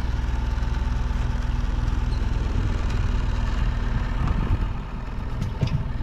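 Steady low hum of an idling engine, with a few sharp clicks near the end.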